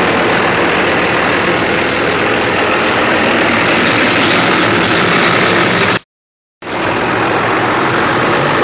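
Tractor engine running steadily, loud and close. The sound cuts out completely for about half a second about six seconds in, then returns unchanged.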